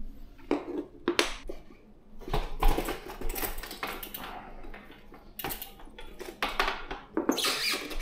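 Mechanical handling noise as a road bike's wheel is taken off: irregular clicks, knocks and clatter of metal parts. The busiest stretch comes a couple of seconds in, and a longer rustling scrape follows near the end.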